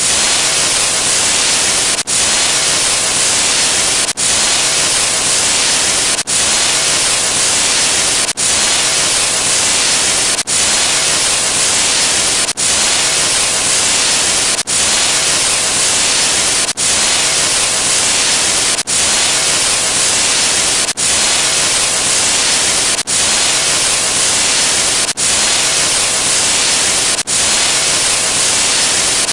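Loud, steady static hiss, like white noise, cut by a brief dropout about every two seconds as the looped sound effect restarts.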